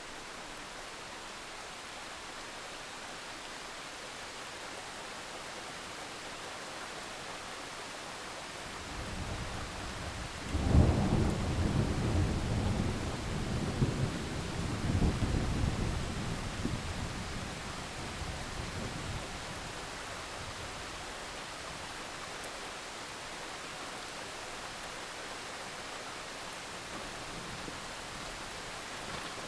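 Steady rain with a thunderclap: a low rumble builds about nine seconds in, breaks into a loud crack, then rolls on with a few more peaks and dies away over the next several seconds, leaving the rain hiss.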